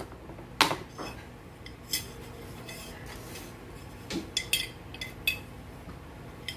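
Spoon, cup and jar clinking and knocking as coffee-making things are handled: a few separate knocks, the loudest about half a second in, then a quick run of small ringing clinks around four to five seconds in.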